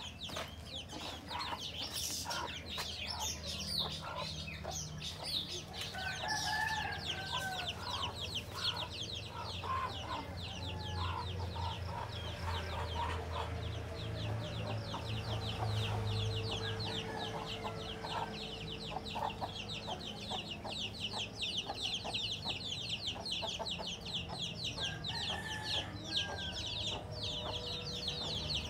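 Chickens clucking, with a rooster crowing, over a fast high chirring.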